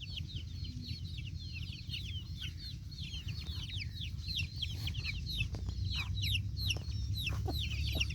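A brood of baby chicks peeping continuously: dense, rapid high cheeps, each one falling in pitch, over a steady low hum, with a few faint knocks in the second half.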